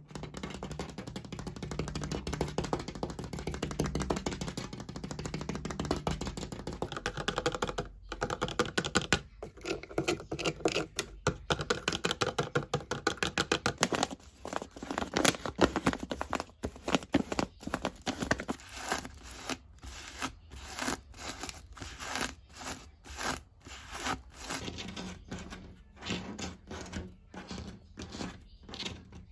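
Rapid ASMR knocking and tapping on hard surfaces. The strokes are densely packed at first, then turn into separate quick knocks from about halfway.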